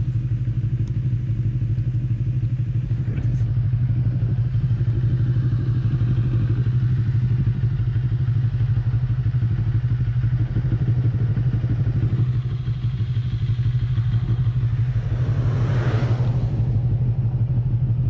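Motorcycle engine idling steadily. Near the end a passing vehicle swells and fades over it.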